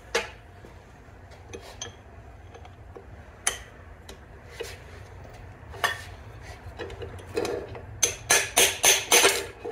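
Hammer blows on a socket and extension bar driving the ball bearings out of a Simplicity 725 bevel gearbox housing. A few scattered metal taps and clinks are followed near the end by a quick run of about seven sharp strikes, roughly four a second, as the bearing comes out.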